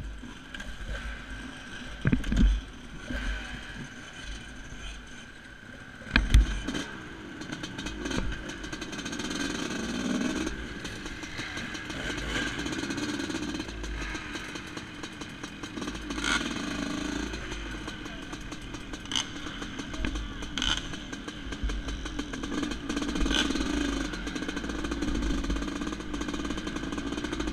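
1989 Yamaha YZ250WR's 250cc two-stroke single engine running as the dirt bike is ridden along a gravel trail, the revs rising and falling. Low wind rumble on the microphone, with two sharp knocks about two and six seconds in.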